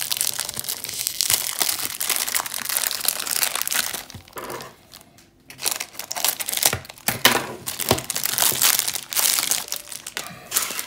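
Thin clear plastic wrapping film crinkling as it is pulled off a puzzle cube by hand, in two spells with a short lull about four seconds in.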